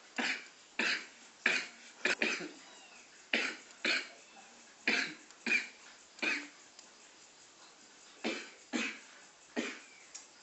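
A person coughing repeatedly: about a dozen short, sharp coughs, several in quick pairs, with a longer pause about two-thirds of the way through.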